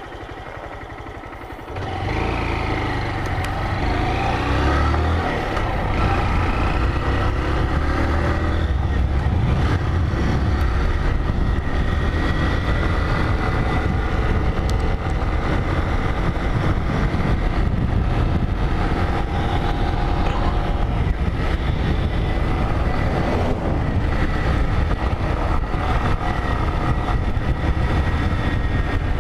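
Motorcycle engine pulling away about two seconds in, then running steadily at riding speed.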